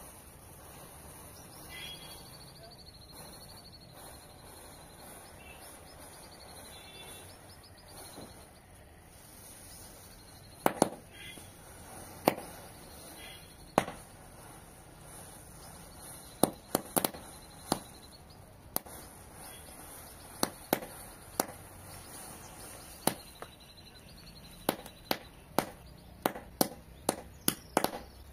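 Matchstick domino chain burning as a chain reaction. From about ten seconds in come sharp pops and cracks, a few at first and then faster and closer together toward the end.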